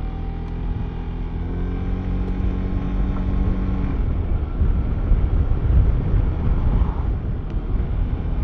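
Yamaha maxi-scooter's engine pulling away, its note rising in pitch over a couple of seconds. About four seconds in, the engine note gives way to a louder low rumble of wind and road noise as the speed builds.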